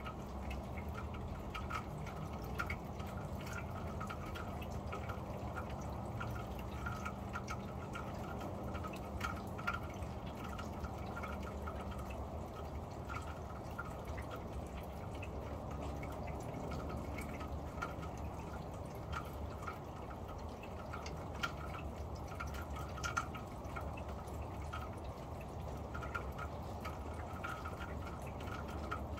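Steady rain on a corrugated metal roof, heard from underneath: an even hiss of rain with many scattered, sharper ticks of single drops.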